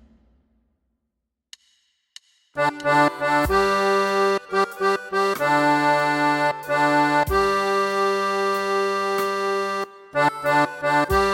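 Near silence with a couple of faint clicks, then about two and a half seconds in a hymn tune starts, played in held chords with a reedy, accordion-like tone. The playing breaks off briefly near the end and resumes.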